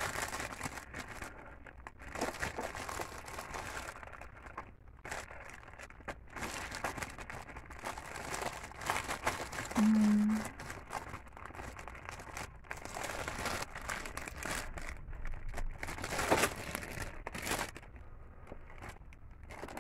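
Clear plastic packaging of embroidered iron-on patches crinkling and rustling in fits and starts as hands rummage through it. A short hummed 'mm' comes about halfway through.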